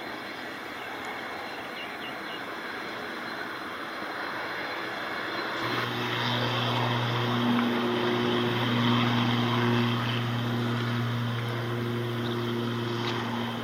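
Jet airliner engine noise, a steady rushing sound that slowly grows louder, with a steady low droning hum joining in about halfway through.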